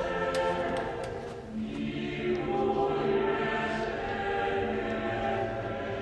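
Choir music playing, voices holding long chords that change about a second and a half in.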